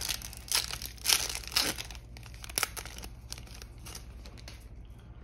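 Foil trading-card booster pack wrapper being torn open and crinkled by hand, loudest a little after a second in, then fainter rustling of the foil for the rest.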